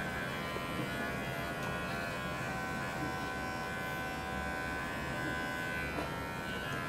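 Electric animal hair clippers running with a steady buzz and a fixed high whine, shaving the fur from a cat's belly and groin.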